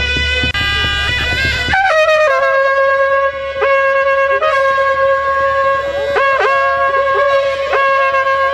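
Nepali panche baja music: a wind instrument holds a long high note, broken now and then by short bending ornaments. Drums beat under it until about two seconds in, when the sound changes abruptly and the drums drop away.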